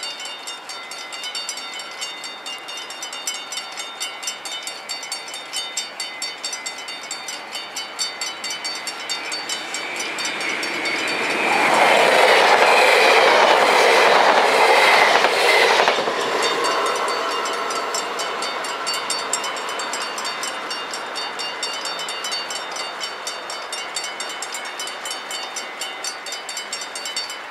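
Mechanical level-crossing bells ring in a fast, steady beat while a VIRM double-deck electric train passes over the crossing. The rush of wheels on rail swells about ten seconds in, is loudest for some four seconds, then fades, and the bells keep ringing after it.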